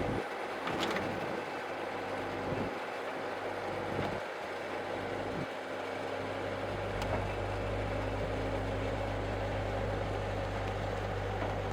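A heavy machine's engine running with a steady low drone, which gets louder and steadier about six and a half seconds in, with a few faint knocks in the first half.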